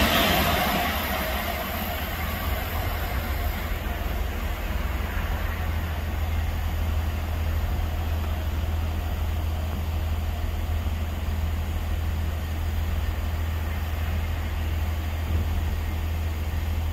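An electric passenger train running past the platform, its noise fading away over the first two seconds, followed by a steady low hum.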